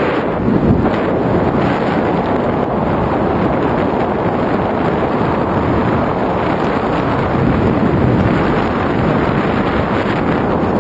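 Steady wind noise buffeting an action camera's microphone as it descends under an open tandem parachute canopy.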